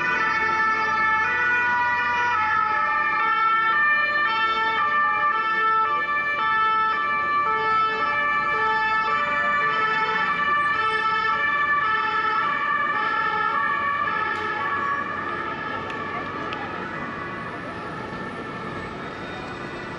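French two-tone emergency-vehicle siren ("pin-pon") alternating between two notes about every half second, fading in the last few seconds.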